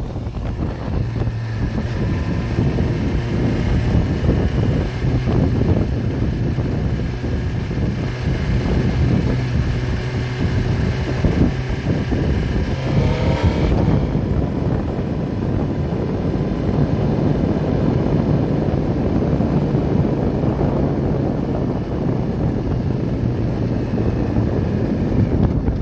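An engine running steadily, with wind noise on the microphone.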